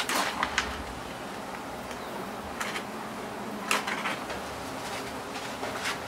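Steady buzzing of a large swarm of honey bees flying off their comb as it is smoked out with a flaming torch, broken by several short sharp noises.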